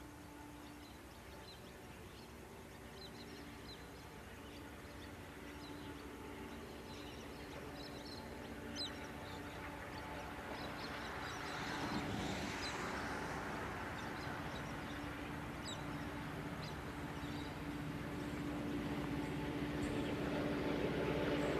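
Diesel-electric locomotive hauling a coal train, its engine a steady hum that grows steadily louder as the train approaches. Small birds chirp now and then in the background.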